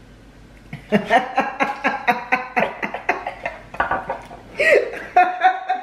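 A woman and a girl laughing together in rapid, breathy bursts, starting about a second in and trailing off near the end.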